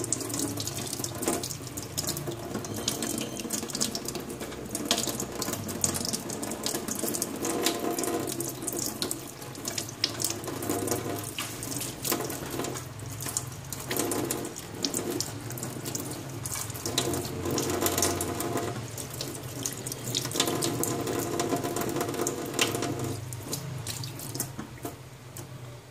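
Tap water running into a stainless steel sink, splashing over hands as they rinse and pick at raw offal, with small irregular splatters throughout.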